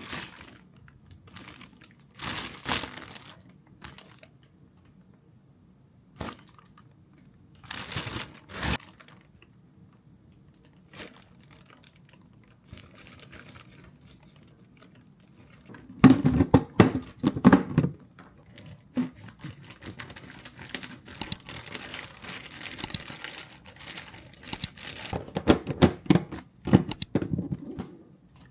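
Plastic packaging crinkling and rustling, with bits of tearing: short handling bursts at first, then dense crackling over the second half.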